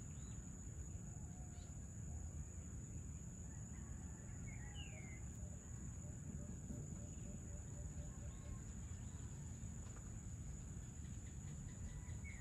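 Birds calling: a short falling whistle about five seconds in and a run of quick low notes, about four a second, in the middle. Under them a steady high insect drone and a low rumble.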